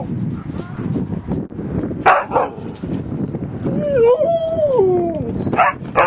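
Siberian husky vocalizing in play: a long, wavering call that falls in pitch, in the middle, with short sharp barks about two seconds in and again near the end.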